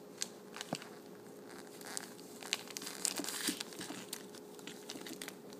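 Milky Way candy-bar wrapper crinkling and crackling in irregular bursts as a cat mouths and paws at it, busiest around the middle.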